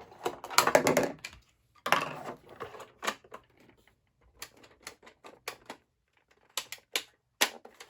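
Rapid clicking and clattering from handling and prying at a Riddler puzzle box while trying to free a stuck drawer, in dense runs early on, then scattered single clicks.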